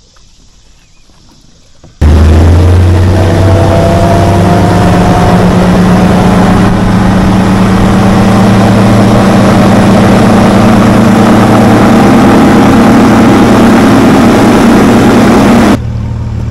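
Bass boat's outboard motor running at speed with heavy wind and water rush, starting abruptly about two seconds in, its pitch rising a little at first, then dropping sharply in level near the end to a lower steady hum.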